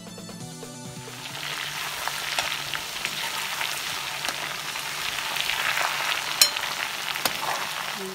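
Marinated chicken pieces frying in coconut oil in a cast-iron pan: a steady sizzle that swells over the first second or two. Sharp clicks and scrapes come from a spatula stirring and turning the pieces against the pan.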